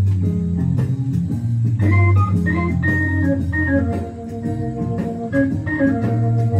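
Recorded music played through an Accuphase E-202 solid-state integrated amplifier and its loudspeakers: held chords over a steady bass, with a melody of sustained notes changing every fraction of a second.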